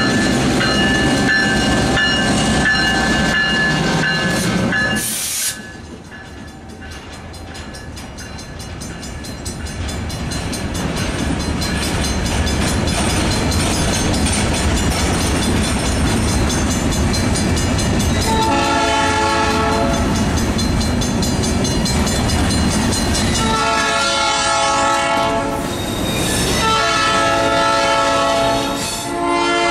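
Crandic EMD MP15AC switcher and its slug passing close by with the diesel running, then a string of covered hopper cars rolling past with clicking wheels. From about two-thirds of the way in, the locomotive horn sounds three blasts, the last the longest.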